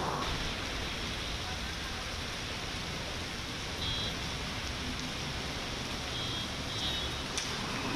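Heavy monsoon rain falling steadily on a wet road, a dense even hiss, with a low rumble of distant traffic underneath. A few faint short high pips come through about halfway and again near the end.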